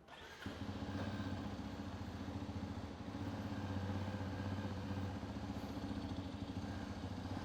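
Hero Xpulse 210's single-cylinder engine idling steadily, coming in about half a second in. The owner hears a buzzing vibration from somewhere on the new bike with the engine running and cannot yet tell what is causing it.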